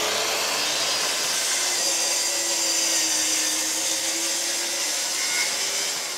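Festool plunge-cut track saw running steadily as it cuts along a guide rail through a sheet of OSB.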